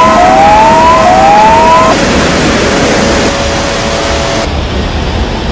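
An electronic siren whooping: three rising tones about a second apart over a steady tone, then one steady tone held for a couple of seconds, over a loud rushing noise of floodwater.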